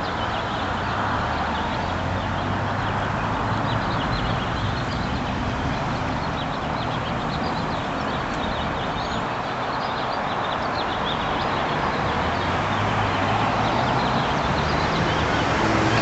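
Street traffic at a town intersection: car engines running and passing, louder toward the end, with many small birds chirping over the steady traffic noise.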